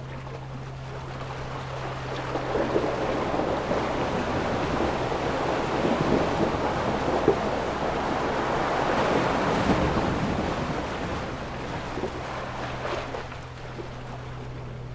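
Ocean waves: surf washing in, swelling over a few seconds to a peak in the middle, then ebbing away.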